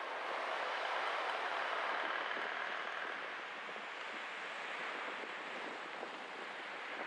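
A car driving, with steady road and wind noise that swells a little between about one and three seconds in.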